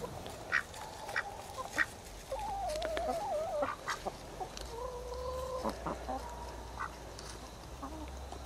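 Domestic hens pecking, with a few sharp taps in the first two seconds. About two seconds in, a hen gives a wavering call, and a steadier held call follows.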